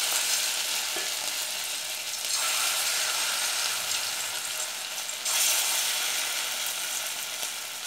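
Pumpkin-and-potato kofta batter sizzling as it deep-fries in hot oil in a wok. The sizzle swells about two and a half seconds in and again about five seconds in, as another ball of batter goes into the oil.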